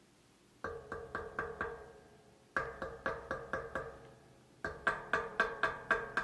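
Three runs of quick, ringing knocks, about four a second. Each knock rings at the same pitch, like tapping on a hard, resonant object such as metal.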